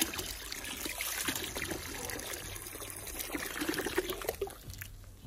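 Water from a garden hose pouring and splashing into a plastic bin already part-filled with water and wood ash. The stream fades near the end.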